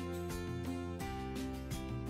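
Background music with a steady beat; the chords change about a second in.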